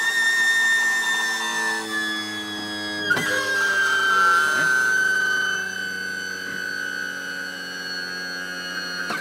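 Electric landing-gear pump running steadily with a whine while it drives the main gear down, and cutting off near the end as the gear locks down. About three seconds in there is a click and its pitch steps down slightly.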